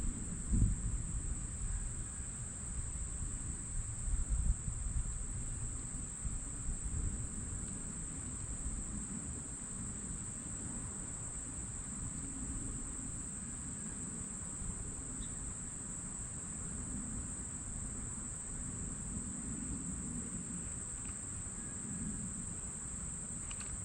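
Steady, unbroken high-pitched chorus of insects such as crickets. Under it runs a low rumble on the microphone, heavier in the first few seconds.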